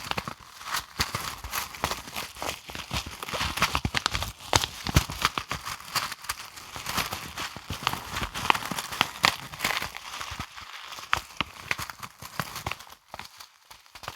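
Brushes stroked and tapped against the microphone: a fast, irregular stream of scratchy swishes and soft ticks that thins out near the end.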